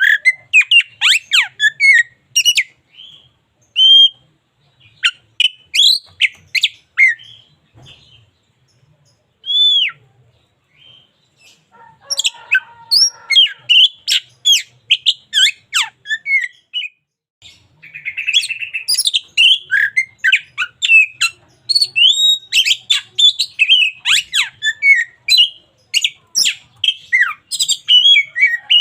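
Oriental magpie-robin singing a fast, varied run of whistles, chirps and trills. Near the middle it thins to a few single whistles, and about two-thirds in there is a harsh buzzy note.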